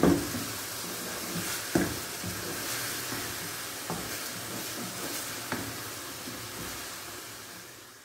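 Chicken filling sizzling in oil in a non-stick frying pan while a spatula stirs it, with a few sharper knocks of the spatula against the pan. The sizzle fades out near the end.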